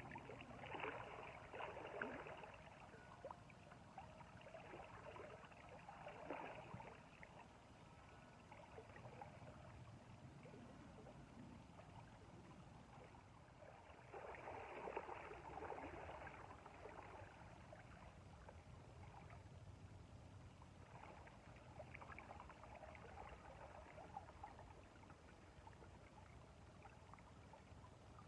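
Faint river water: irregular bursts of splashing and gurgling over a steady low rush of flowing water, loudest near the start and again about halfway through.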